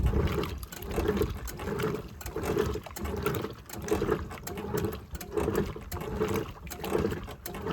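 Homemaker 7 kg top-loading washing machine agitating a load in water, the agitator swishing the clothes back and forth about twice a second.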